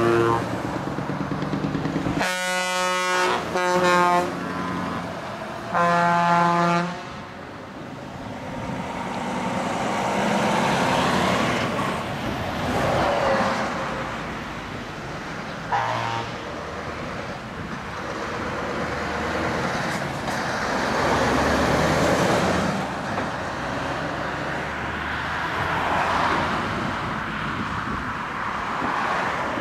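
Truck air horns blast three times in the first seven seconds as a tractor unit passes, then a steady run of passing traffic: engines and tyre noise swelling and fading, with one short horn toot about sixteen seconds in.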